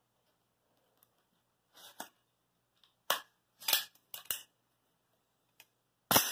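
AR-15 rifle's action worked by hand with no magazine: several sharp metallic clacks and clicks from the charging handle and bolt carrier, irregularly spaced, the last one near the end among the loudest. He is checking a fault in the action, which he thinks may lie in the bolt carrier or be cured by an enhanced bolt catch.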